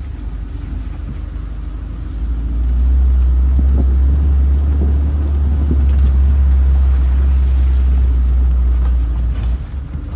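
Open-topped jeep driving over a rough lava track: a steady low rumble of engine and wind buffeting the microphone, growing louder about two and a half seconds in and easing just before the end.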